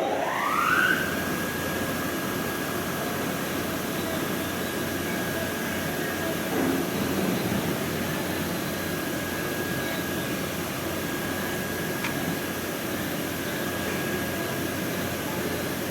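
A small electric motor spins up with a rising whine over about the first second, then runs steadily with a constant high whine over a rush of air.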